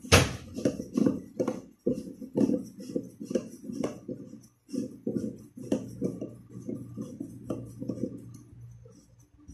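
Hands working on a white toilet cistern: a quick, irregular run of knocks and scrapes on its hard shell, about three or four a second, thinning out near the end.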